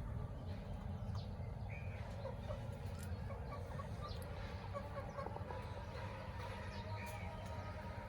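Chickens clucking now and then, with short scattered calls over a steady low rumble.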